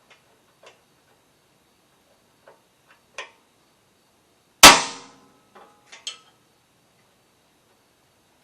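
Hammer striking a punch against the skid plate to mark a bolt hole for drilling. One hard metallic strike rings briefly about halfway through, with a few lighter taps and clicks around it.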